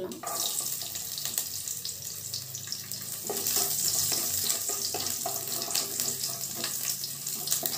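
Garlic cloves sizzling as they hit hot oil with mustard seeds and curry leaves in a nonstick kadai, a steady frying hiss. A wooden spatula scrapes and taps against the pan as they are stirred.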